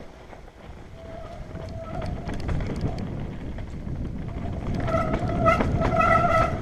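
Mountain bike ridden fast downhill over a dusty, bumpy dirt trail: a constant rumble of tyres and wind on the helmet microphone, with short rattling knocks over bumps. A high, steady whine from the bike comes in about a second in and again louder from about five seconds on.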